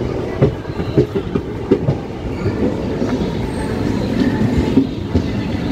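Tungabhadra Express passenger coaches rolling into the station, wheels clattering over rail joints. Several sharp knocks come in the first two seconds over a steady low rumble.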